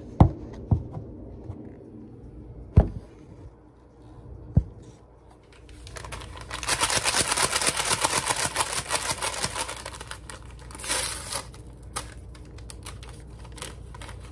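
A few sharp knocks, then about four seconds of dense, rapid crinkling of packaging being handled, with a shorter burst of it a little later.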